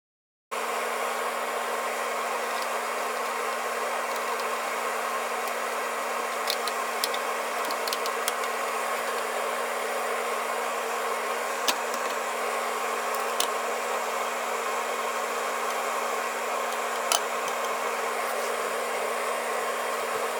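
Steady whirring of a motor-driven fan or blower with a constant low hum, starting abruptly about half a second in, with a few light clicks over it.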